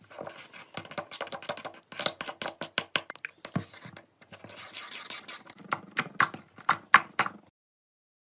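Sticky slime being worked by hand, giving rapid wet crackling clicks with a few short pauses and several louder pops near the end, then stopping suddenly.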